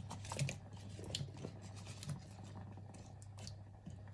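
Wooden spoon stirring diced yam and tilapia in a metal pot of soup: a handful of soft knocks and wet squishing, most in the first two seconds, over a steady low hum.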